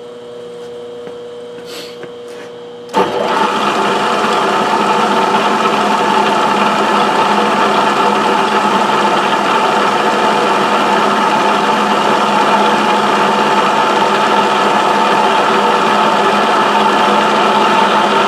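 Milling machine switched on about three seconds in, its spindle motor then running steadily and loudly. Before that there is a quieter steady hum.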